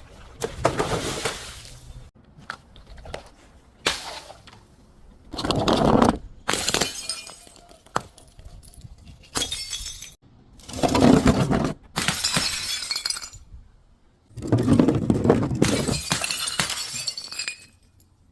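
Glass being broken and crushed: repeated crunching and shattering, several bursts each lasting a second or two, with short pauses between.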